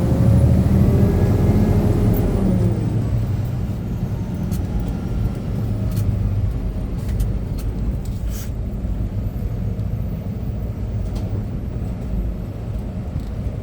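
Inside a semi-truck cab: the diesel engine running steadily with road noise, its pitch falling over the first few seconds as the truck slows.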